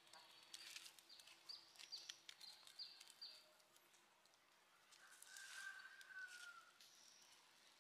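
Faint sizzling and crackling of squid cooking on a hot stone over a fire, with birds calling: a quick run of short falling chirps in the first few seconds, then one long whistle about five seconds in.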